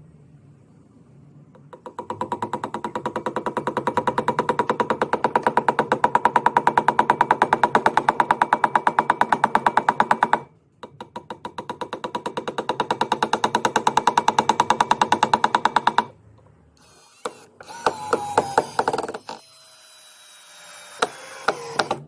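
Power drill boring a hole into a wall in two long runs, the first about eight seconds and the second about five, with a fast, steady hammering rattle over the motor tone. After them come scattered clicks and knocks.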